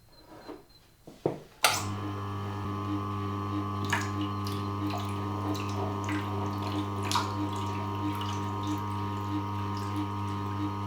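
An electric sharpening machine's motor is switched on with a click and runs at a steady hum, with a faint regular beat about three times every two seconds. A few light clicks sound over it.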